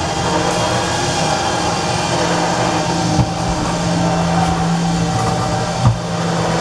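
Electric cable hoist motor of a home-built elevator running steadily under load as it lifts the car, with a couple of short knocks along the way.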